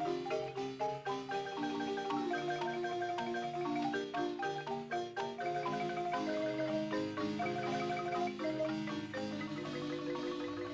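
Marimba music: a melody over chords, with held notes rolled by rapid mallet strokes.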